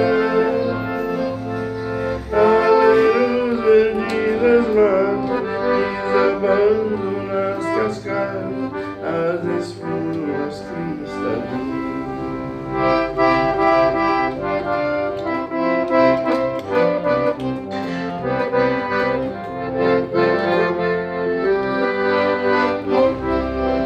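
Instrumental passage of a Brazilian sertanejo song with no singing, an accordion playing the melody over the backing band.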